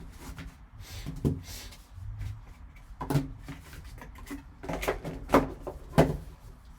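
A cardboard trading-card box being opened and its packaging handled: about five short knocks and scrapes, spaced a second or two apart.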